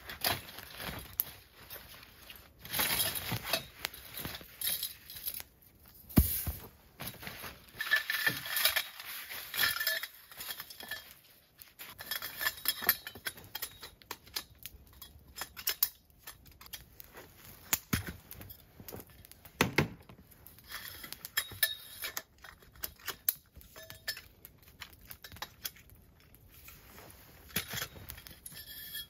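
Segmented campfire cooking tripod being assembled: its pieces clinking, rattling and knocking together in irregular bursts.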